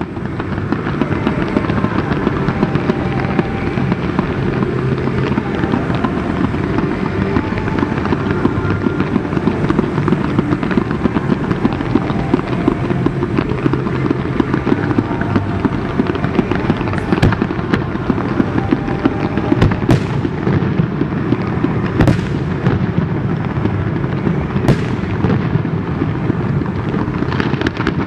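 Fireworks display: a dense, continuous barrage of shells bursting and crackling, with sharper loud reports standing out about 20, 22 and 25 seconds in.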